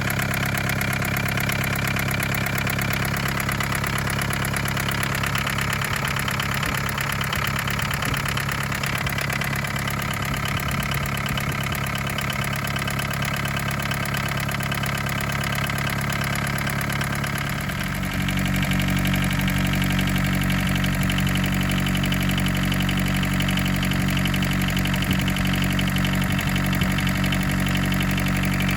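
1981 Isuzu Pup's C223 four-cylinder diesel engine idling steadily as it warms up after a hard cold start. About two-thirds of the way through it gets a little louder, with a stronger low note.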